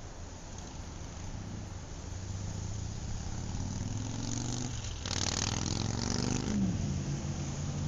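A motor vehicle engine rising in pitch, then a loud rushing noise for about a second and a half, ending with a short drop in pitch into a steady engine drone.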